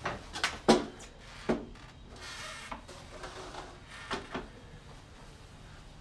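A few sharp knocks and clunks bunched in the first second and a half, then a brief rustle and a couple of fainter taps.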